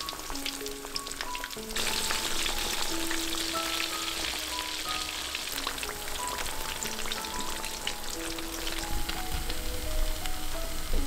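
Battered tilapia pieces deep-frying in hot oil in a wok: a dense crackling sizzle that grows louder about two seconds in.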